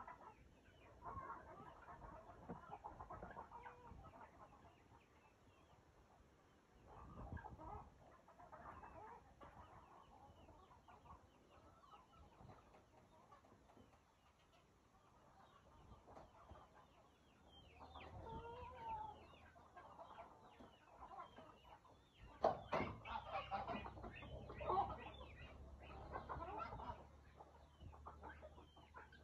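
A flock of farmyard chickens clucking faintly, with short calls off and on that grow busier and louder near the end. A low rumble runs underneath in the second half.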